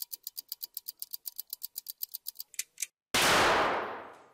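Fast, even ticking like a clock, about eight ticks a second, stops shortly before a loud bang about three seconds in, which fades away over about a second: a rifle cartridge heated by a candle flame cooking off.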